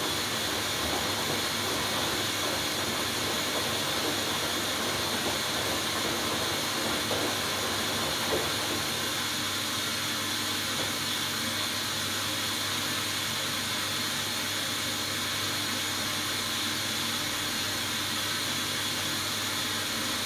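Hoover Dynamic Next washing machine in its final rinse, a steady hiss of water with a low machine hum underneath.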